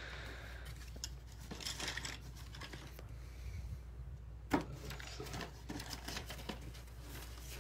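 Paper sheets and thin cardboard rustling and shuffling as they are handled and sorted in a box, with one sharper tap about four and a half seconds in.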